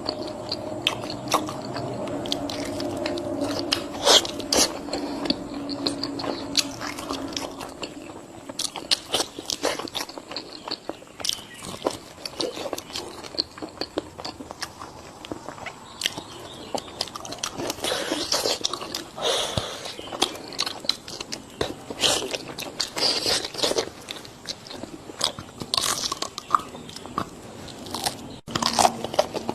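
Close-up chewing and biting of crunchy food: irregular crisp crunches and mouth sounds through the whole stretch.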